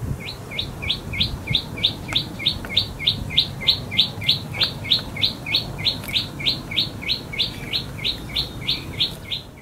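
A bird calling a long, even series of identical short rising chirps, about three or four a second.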